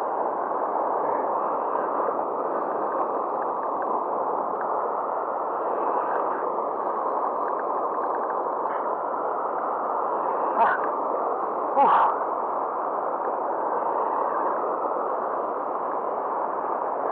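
Steady rush of fast, foaming river water below a weir, with two brief louder sounds about ten and twelve seconds in.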